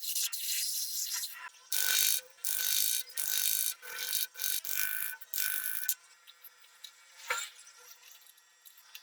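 Hand sanding or filing on a workpiece: a run of rasping strokes about two a second, stopping about six seconds in, then a single sharp knock about a second later.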